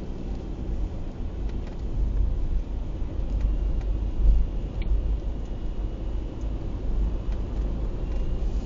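Car driving on a wet road, heard from inside the cabin: a steady low rumble of engine and road noise.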